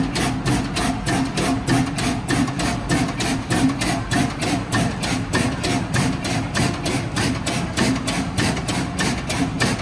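Large stationary multi-cylinder pumping-station engine running at slow speed, with an even, steady beat of about four to five knocks a second.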